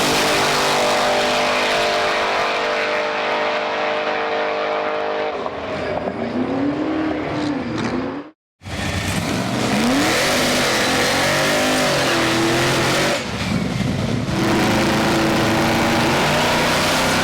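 Supercharged 540-cubic-inch big-block V8 drag car engine running loud, held steady for about five seconds and then revved up and down. It cuts out abruptly about eight seconds in, comes back, and keeps revving with rising and falling pitch.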